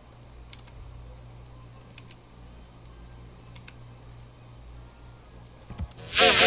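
A steady low electrical hum with a few faint, scattered clicks. About six seconds in, loud, distorted, pitch-shifted singing with music cuts in.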